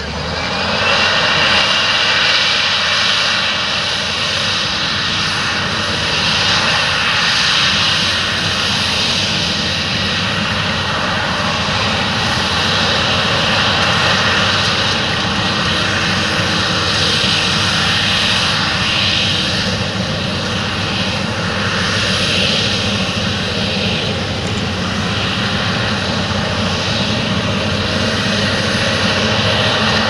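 Challenger MT775E tracked tractor's diesel engine running steadily under load as it pulls a ten-furrow plough through stubble: a continuous drone with a broad hiss over it, swelling a little about a second in.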